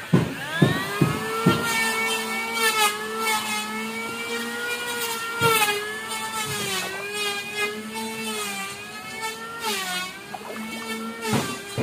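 A small engine runs after a few knocks in the first second or two. Its pitch climbs at first, then wavers and dips with the throttle, sagging briefly about ten seconds in before picking up again.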